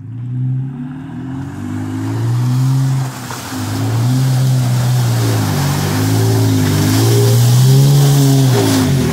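Vehicle engine revving up and down over and over, over a loud hiss of wheels spinning in deep mud and water. It cuts in suddenly at the start.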